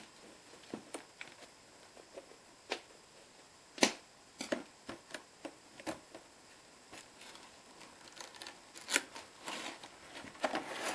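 Hands handling and opening a cardboard toy box: scattered taps, clicks and scrapes of cardboard, the loudest about four seconds in, with denser rustling near the end.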